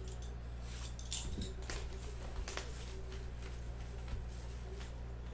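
Plastic shrink wrap being torn and crinkled off a sealed trading-card hobby box, in short irregular crackles.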